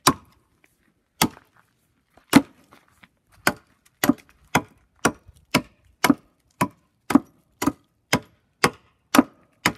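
Light axe chopping down the side of a small log, about sixteen sharp strikes, slow at first and then about two a second, hewing off the wood between the notches (joggles).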